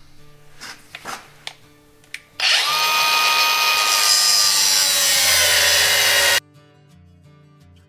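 Cordless cutoff wheel spinning and cutting through a steel gearbox part, starting about two and a half seconds in and stopping abruptly about four seconds later, its whine sagging slightly in pitch under load. Before it, a few light clicks of handling the tool.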